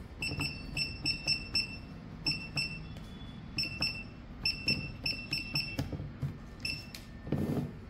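Keypad beeps of an Eromart billing machine: a short high beep for each key pressed as items and quantities are entered, about fifteen of them in quick runs. Near the end comes a brief whirr as the receipt printer starts.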